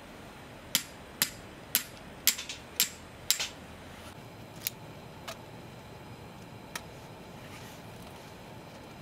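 A run of six sharp taps or clicks about half a second apart, then three fainter, sparser ones, over a steady low hiss.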